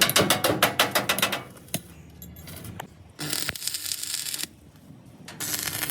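Rapid metal tapping, about seven quick strikes a second, typical of hammering on sheet metal; it stops about a second and a half in. Later come two stretches of rasping, hissing noise, each about a second long.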